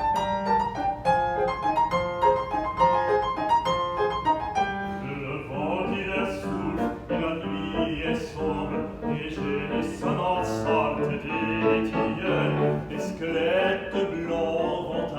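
Piano playing alone for the first few seconds, then an opera singer comes in about five seconds in, singing unamplified over the piano with a wide vibrato.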